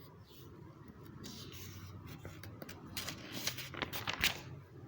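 Faint scratching and rubbing strokes, with a few sharper scrapes close together in the second half.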